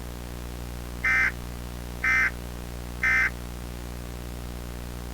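Three short bursts of Emergency Alert System end-of-message data tones (the SAME "NNNN" burst), each about a quarter second long and a second apart, signalling that the alert has ended, over a steady low hum.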